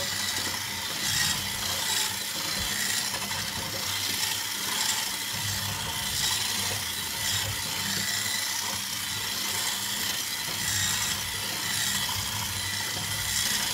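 Electric hand mixer running steadily with dough hooks, churning crumbly butter-cookie dough in a bowl: a low motor hum under a rough, scraping rattle.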